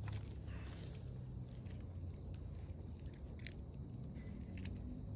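Scattered light clicks and taps of chopsticks and a small seasoning packet being handled, over a steady low hum.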